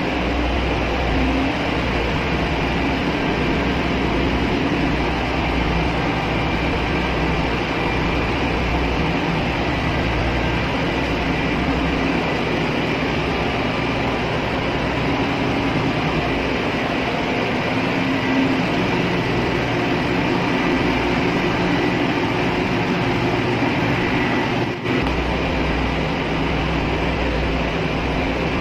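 Steady loud ship engine-room machinery noise, a constant drone with a low hum underneath, heard from inside the main engine's scavenge space.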